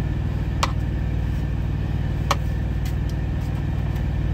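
A truck's engine idling with a steady low hum. Two sharp clicks, one under a second in and another at about two seconds, from metal tongs tapping the skillet.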